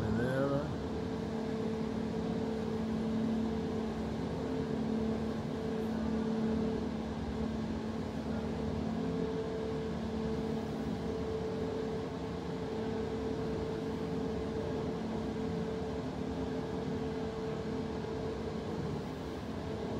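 A steady mechanical hum on one low pitch with a second, higher hum above it, over a constant rushing noise.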